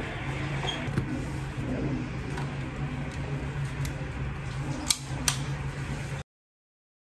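Steady low hum of room ventilation, with a few sharp handling clicks about one second in and twice around five seconds in, cutting off to silence about six seconds in.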